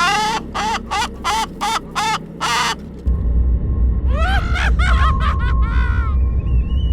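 A bird squawking in a rapid series of about seven short, harsh calls. About three seconds in a deep low rumble begins, with a few more calls and a steady high tone over it.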